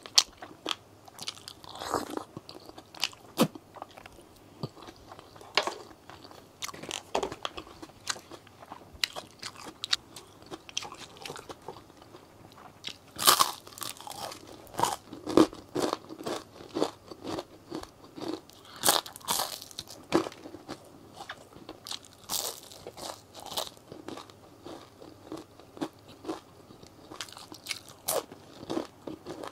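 Close-miked eating: chewing with irregular crisp crunches, the loudest about halfway through as a waffle fry is bitten.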